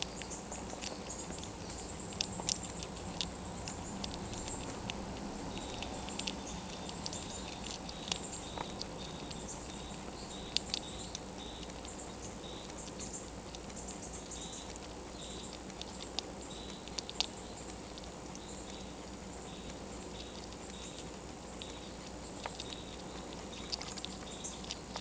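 Baby gray squirrel gnawing an acorn held in its forepaws: small irregular clicks and cracks of teeth on the shell, over a steady low hum.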